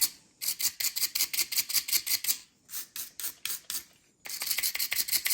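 Brass wire brush scrubbing corrosion off the battery contacts of a Schlage keypad door lock, in quick back-and-forth scratchy strokes about five a second, with two short pauses.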